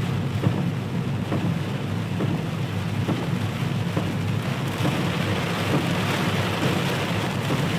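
Steady low rumble of a car moving slowly along a flooded road, heard from inside the car, with a constant hiss of water and scattered faint ticks.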